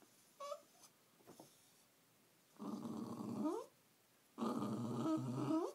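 Small white-and-tan terrier growling: a brief high yelp about half a second in, then two drawn-out growls of about a second each, each sliding up in pitch at the end.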